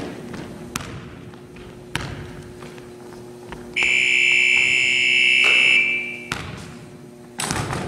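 Basketball thudding on a wooden gym floor, then an electronic timer buzzer sounds one steady two-second blast about four seconds in.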